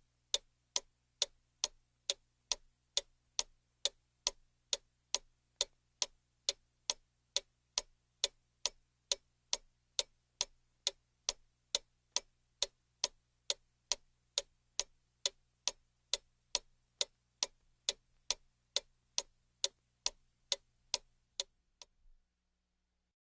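Mantel clock ticking steadily, about two and a half ticks a second; the ticking stops near the end.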